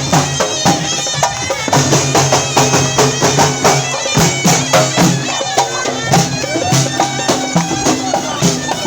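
Tunisian hadra procession music: a loud, reedy wind instrument plays a melody over fast, dense drumming.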